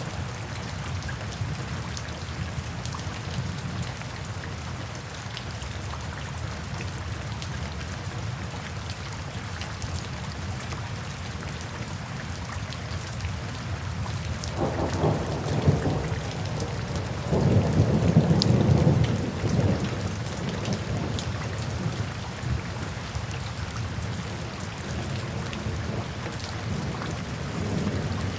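Steady rain falling, with thunder rumbling between about 14 and 20 seconds in, loudest a few seconds after it begins.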